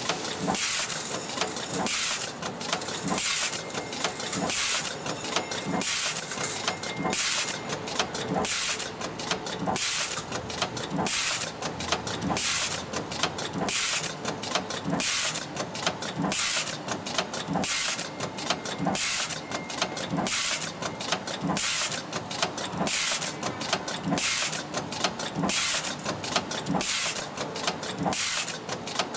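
Automated fork press line running its cycle: pneumatic grippers and valves letting out short bursts of hissing air about two a second, mixed with mechanical clacks of the gripper and press die.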